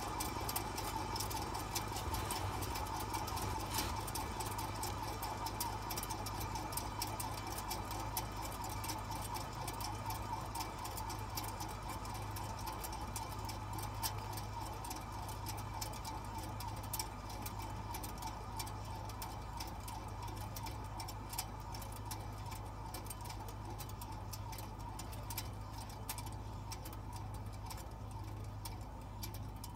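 Federal Model 78 dual-tone siren winding down late in its coast after power-off, the rotor still turning: a faint whir that slowly fades, with many small irregular clicks.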